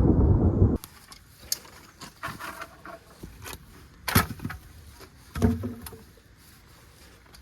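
A low thunder rumble that cuts off abruptly under a second in. Then scattered footsteps and sharp cracks of sticks underfoot on the woodland floor.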